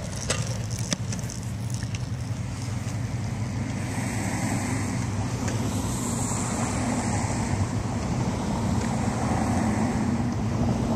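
Wind rumbling steadily on the microphone outdoors, with a few light clicks in the first second.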